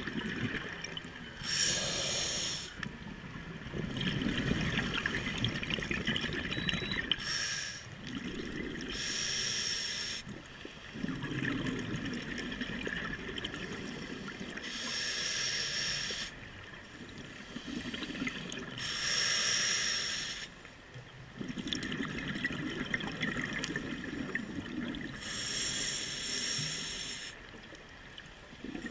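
Scuba diver breathing through a regulator: five hissing inhales through the demand valve, about every five to seven seconds, each followed by a longer low rumble of exhaled bubbles.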